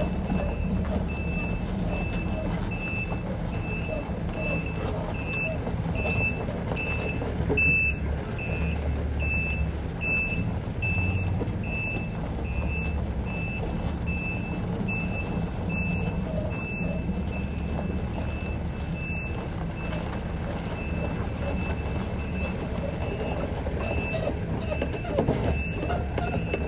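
Takeuchi TB290 mini excavator's diesel engine running steadily under hydraulic load, with its travel alarm beeping a little faster than once a second as the machine tracks.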